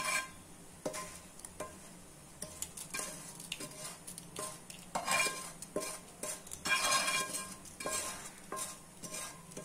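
Metal spoon scraping and clinking in a small frying pan as a hot tempering of mustard seeds, urad dal, dried chilli and curry leaves in oil is tipped into a bowl of groundnut chutney, with a light sizzle. The scrapes come irregularly, loudest about five seconds in and again about seven seconds in.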